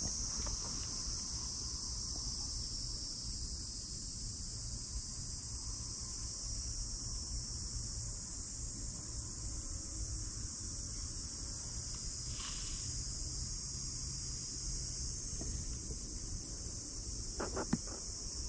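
Steady, high-pitched chorus of summer insects, unbroken throughout, over a low rumble.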